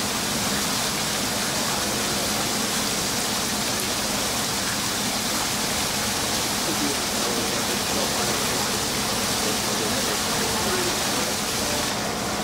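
Steady rush of water pouring and gushing inside a flooded building. A firefighter thinks the flood may come from pipes that froze.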